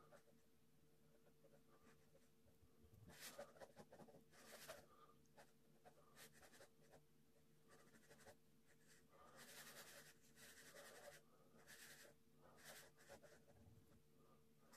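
Faint ballpoint pen scratching across paper in irregular bursts of quick hatching strokes.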